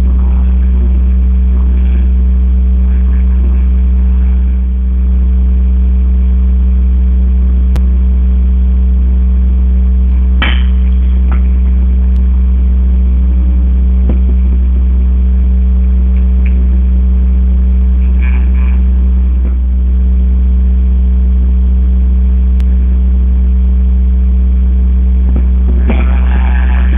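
Loud, steady low hum with a sharp knock about ten seconds in and faint voices near the end.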